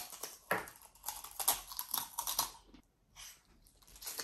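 Close-up crunching of Takis rolled tortilla chips being bitten and chewed: a quick run of sharp, crackling crunches for about two and a half seconds, then it goes quiet apart from a couple of softer sounds near the end.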